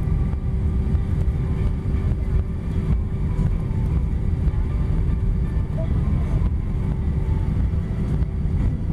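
Airbus A320's jet engines and airframe heard from inside the cabin as the airliner rolls along the ground: a steady, loud low rumble with a constant hum above it.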